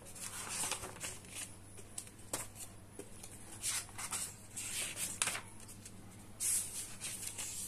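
Pages of a thick paperback book being flipped by hand: a series of quick, irregular paper swishes and rustles.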